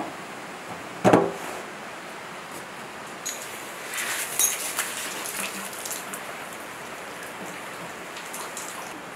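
A single sharp clank about a second in, as a filler cap is closed on a single-cylinder diesel engine's tank. Then, from about three seconds in, water runs from a hose into the engine's cooling-water hopper, splashing and trickling for a few seconds.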